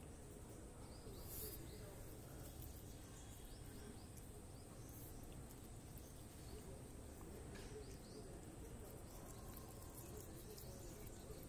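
Faint crunching and tearing of a cat biting and chewing grass blades, a few soft scattered clicks over a quiet room hush with a faint steady high whine.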